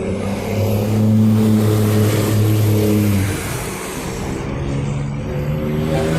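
A heavy vehicle's engine running loud close by: a steady low drone that holds for about three seconds and then falls away, with another engine drone coming up near the end.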